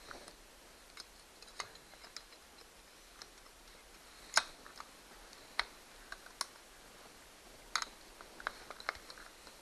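Scattered sharp clicks and taps at an irregular pace, the loudest about four and a half seconds in. They come from a threading die's T-handle stock and pliers being handled on a steel bolt that serves as a battery post.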